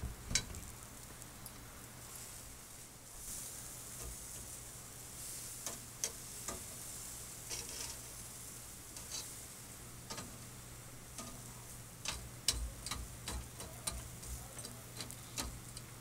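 Lobster tails and vegetables sizzling in a wire grill basket over charcoal, with scattered sharp clicks of metal tongs against the wire mesh.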